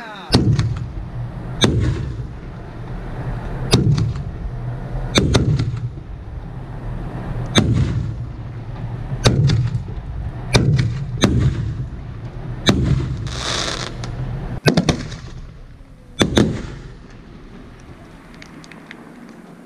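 Aerial fireworks bursting: about a dozen sharp bangs at irregular intervals, some in quick pairs, each followed by a low rumbling echo. A brief hiss comes about two-thirds of the way through, and the bangs stop shortly after.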